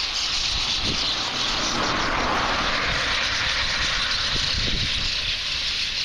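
A huge flock of small birds calling all at once, blending into a steady, dense hiss.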